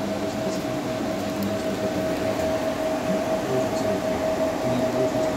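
Palomar StarLux laser console running: a steady mechanical hum with a constant mid-pitched whine.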